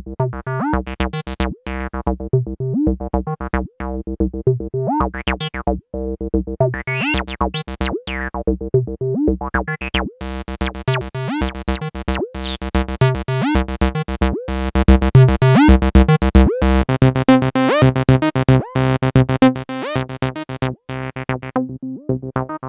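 MAM MB33 analog bass synthesizer, a TB-303 clone, playing a sequenced acid bassline: short repeating notes with the filter sweeping brighter and darker. It grows busier and louder in the second half.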